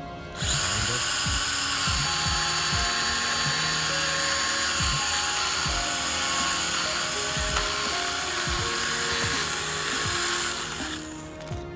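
STIHL GTA 26 battery-powered mini pruning saw running and cutting through a pear tree branch: a steady high whine that starts about half a second in and stops near the end.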